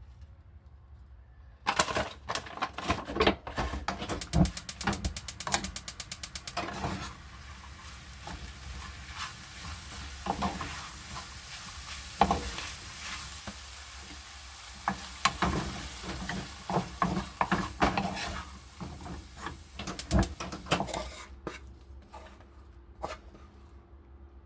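Spring cabbage and ground meat stir-frying in a pan: a steady sizzle with a spatula repeatedly scraping and knocking against the pan. It starts abruptly about two seconds in and dies away a few seconds before the end.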